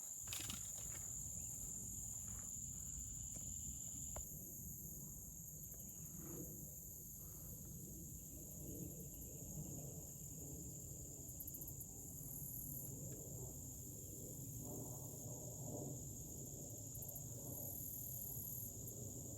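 Outdoor insect chorus: a steady, high-pitched trilling of insects in the wet grass. Its pitch steps up about four seconds in, over a faint low rumble.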